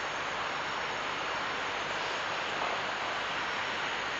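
Steady, even hiss of outdoor night-time ambience.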